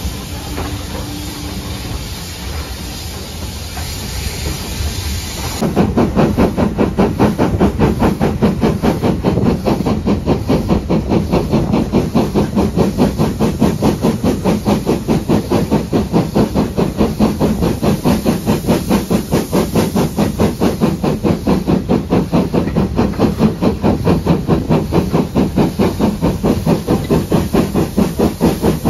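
Steam locomotive working along the line, its exhaust beating in a fast, even rhythm, heard close up from an open carriage window behind the engine. The first few seconds are quieter rail-yard noise before the beat cuts in suddenly.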